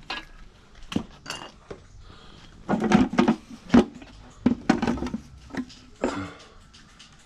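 Irregular metal clanks and clinks, about eight sharp knocks spread over several seconds with a cluster in the middle, as hand tools and the oil pan are worked loose from an engine block on a stand.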